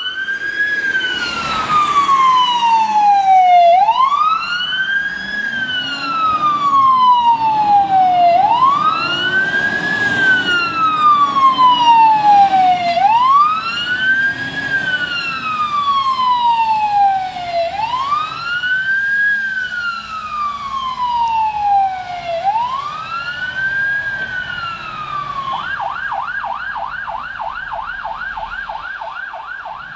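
Fire engine's electronic siren on an emergency run: a wail that climbs quickly and falls slowly over about four and a half seconds, repeated six times, then switching near the end to a fast yelp of about four cycles a second. The truck's engine runs underneath as it pulls out, and the siren fades as it drives away.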